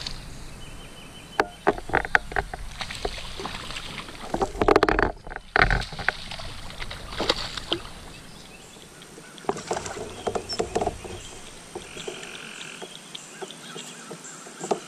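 A hooked bass being fought to a fishing kayak and landed: scattered splashes and knocks of the fish and tackle against the plastic hull, busiest about five seconds in, then quieter.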